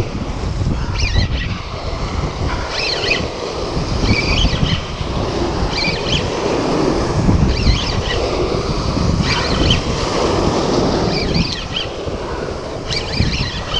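Surf breaking and washing over a rocky shore, with wind buffeting the microphone. Short rasping bursts come about every one and a half to two seconds.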